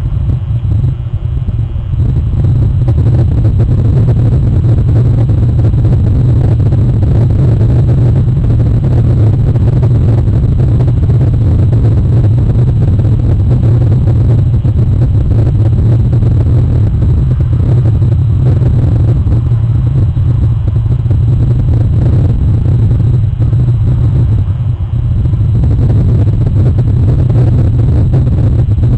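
Loud, steady low rumble with a hiss above it, which dips briefly about a second in and again near the end. A faint, thin, high electronic whine runs under it.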